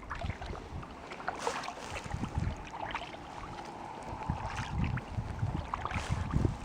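Water splashing and lapping around a kayak, with many small drips and ticks. Low gusts of wind buffet the microphone now and then.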